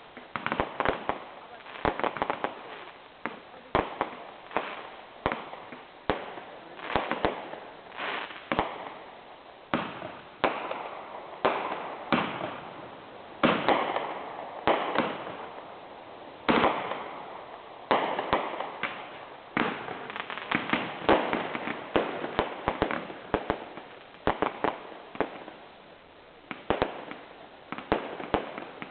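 Fireworks display: a fast, irregular run of shell bursts, one bang after another, many followed by a short crackle.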